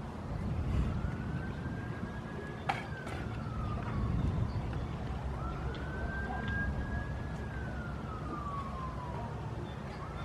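Distant emergency-vehicle siren wailing: a single tone that slowly rises, holds and falls, about two cycles, over a steady low rumble. A single sharp knock about two and a half seconds in.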